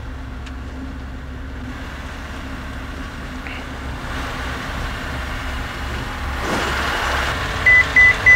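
The four-cylinder Rotax 912ULS engine of a Sling 2 light aircraft running at low power, a steady low drone that grows louder over the second half. Three short high beeps sound near the end.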